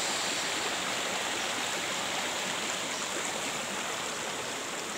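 Small rocky mountain stream flowing over and between boulders: a steady rush of running water.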